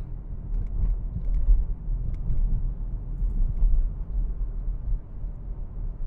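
Car driving, heard from inside the cabin: a steady low rumble of road and engine noise, with a few faint light ticks.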